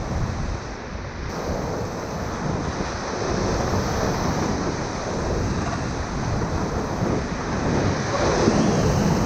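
Whitewater rushing and splashing around a raft running a rapid, with wind buffeting the microphone; the rush swells a little near the end.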